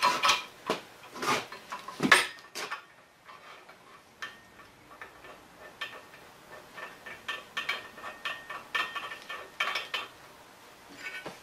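Metal hand tools and parts clanking and clinking on a drill press table as they are handled: a few loud knocks in the first couple of seconds, then a run of lighter clicks and ticks.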